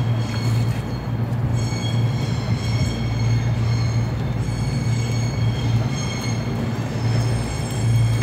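A steady low mechanical hum with a high, wavering whine over it, like a passing motor-driven vehicle.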